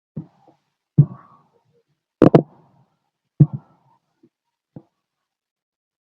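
Stomach growling heard through a stethoscope on the abdomen: a handful of short gurgles and clicks at uneven intervals, the loudest a quick double gurgle in the middle, with silence between them.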